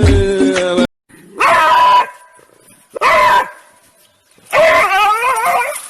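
Dog vocalizing three times, two short pitched calls and then a longer one that wavers up and down in pitch. Background music cuts off about a second in, before the first call.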